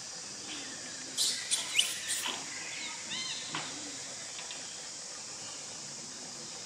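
Long-tailed macaques calling: a quick run of shrill squeals about a second in, then three short chirps, over a steady high-pitched hiss.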